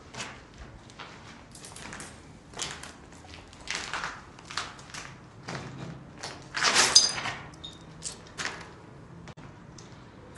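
Irregular scuffing and scraping as people shuffle through a narrow doorway on a gritty floor, with a louder, longer scrape about seven seconds in.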